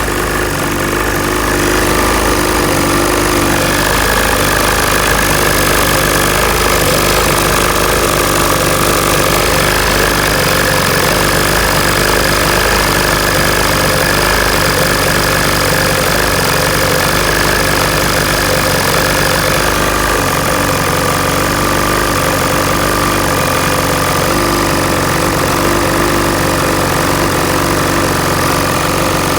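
2015 800 E-TEC two-stroke engine running steadily at idle, with the vibration of bad motor mounts.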